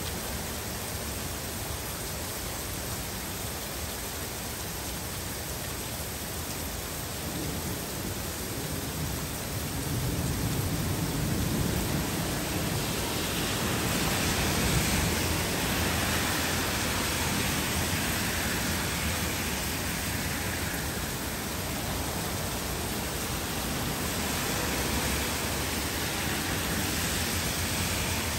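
Heavy rain falling steadily, a continuous hiss. About ten seconds in it swells louder for several seconds, a low rumble first and then a brighter hiss.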